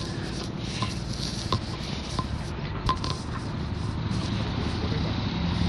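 Outdoor ambience: a steady low rumble with a few scattered taps and scrapes, the two clearest about one and a half and three seconds in.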